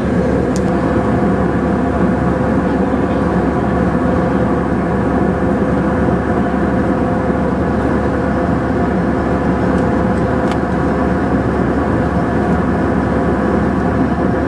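Airliner cabin noise in flight: jet engines and rushing air heard from a window seat as a loud, steady drone with a constant hum tone.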